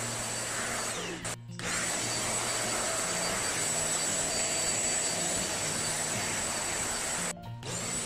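Deerma DX700 handheld stick vacuum running steadily with a high motor whine as its flat floor nozzle is pushed over tile. The sound drops out briefly twice, about a second and a half in and near the end.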